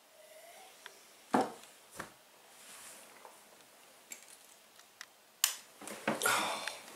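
Small handling sounds by a bed: a glass set down on a bedside table with a knock about a second and a half in, a second softer knock, then a few light clicks including a lamp switch being turned off, and bedcovers rustling near the end.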